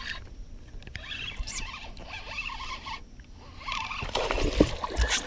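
Spinning rod and reel being handled close to the microphone: irregular scratchy rustling and light clicks, with a few sharper knocks near the end.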